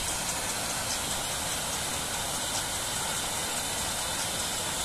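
Steady rushing of a stream's running water: an even hiss with no breaks.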